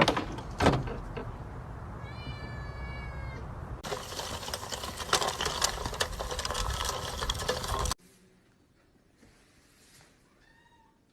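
A cat meowing: one long, steady meow about two seconds in, after a couple of sharp knocks, and a short, fainter meow near the end.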